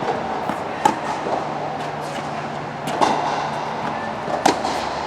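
Racket hits in a rally: three sharp strikes of the ball, about one and a half seconds apart, over a steady noise bed.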